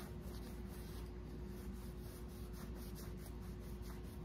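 A cloth rubbing and wiping over a small lacquered wooden chair-arm piece, a run of faint quick strokes over a steady hum.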